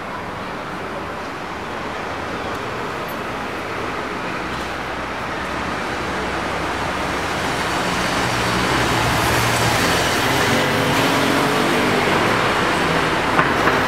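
Road traffic noise that builds steadily louder, with a vehicle's engine coming nearer in the second half. A few light clicks come near the end.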